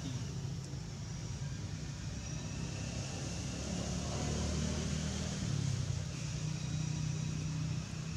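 Steady low engine rumble like a motor vehicle running, swelling a little in the middle and easing off near the end.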